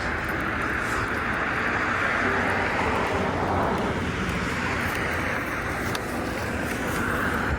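Traffic passing on a wet road: the steady hiss of tyres on wet pavement, swelling as a vehicle goes by and easing off again.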